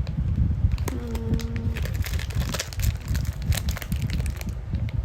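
Crinkling and crackling of packaging being handled, with many small clicks over a low handling rumble. A short, steady low hum comes about a second in.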